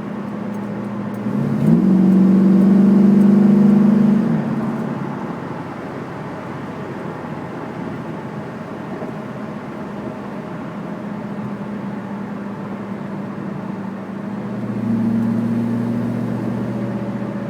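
Chevrolet Camaro running with a steady low hum, which the owner suspects may be a bad wheel bearing. The hum swells louder and rises in pitch twice, for about three seconds near the start and more briefly near the end, then settles back.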